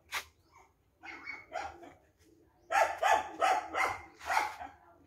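Dog barking: a few softer barks, then a quick run of about five loud barks in the second half.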